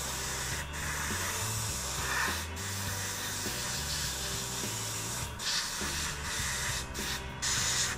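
Gravity-feed airbrush spraying paint onto a plastic model: a steady air-and-paint hiss that breaks off briefly several times as the trigger is let go, over background music.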